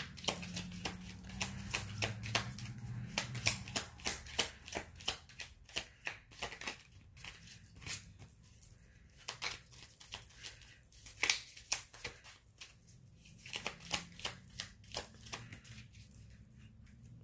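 A deck of tarot cards being shuffled by hand: a dense run of quick card clicks and riffles for the first seven seconds or so, then shorter bursts of shuffling with pauses between them.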